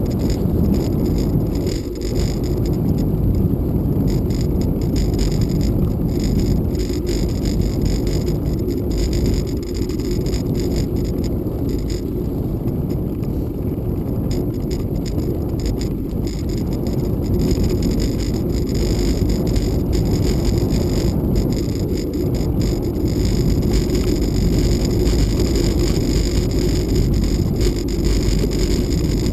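Bicycle rolling along an unpaved dirt-and-gravel road: a steady low rush of tyre noise and wind on the microphone, with a constant scatter of small clicks and rattles from the rough surface.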